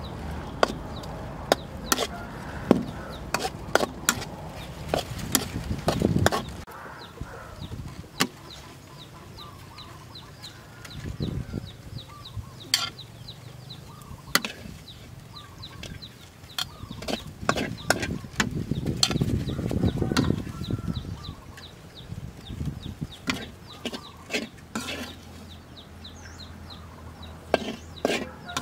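Metal ladle-spatula clanking and scraping against a steel wok as fried noodles are stirred and scooped out onto a plate, in a run of sharp knocks that thins out midway and picks up again near the end.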